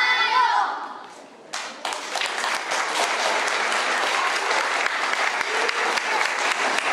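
A song's singing ends in the first second; after a brief lull, the audience bursts into applause that carries on steadily with dense, even clapping.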